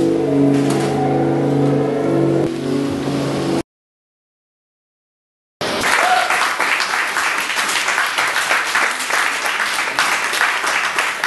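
Sustained synth-pad chords that cut off about a third of the way in; after about two seconds of silence, an audience applauding.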